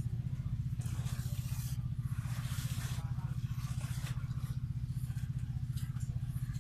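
A steady low machine hum with a fast, even pulse, the loudest sound throughout. Over it come bursts of rustling and scraping as needle and thread are worked and pulled through a braided rope sandal sole.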